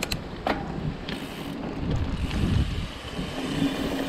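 Mountain bike rolling along a dirt trail: wind rushing over the microphone and a steady tyre rumble, with a few sharp rattling knocks in the first second as the bike goes over bumps.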